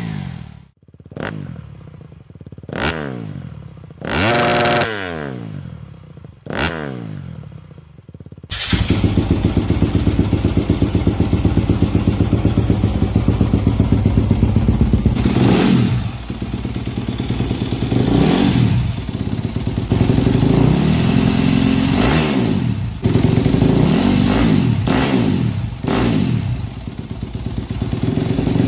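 250cc four-stroke single-cylinder motocross bike with an aftermarket exhaust, revved in short sharp throttle blips that rise and fall, then after about eight seconds running continuously at idle with repeated revs.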